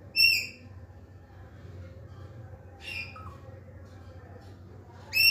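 Alexandrine parakeet giving short, high squawks: a loud one just after the start, a fainter one about three seconds in, and another loud one at the end.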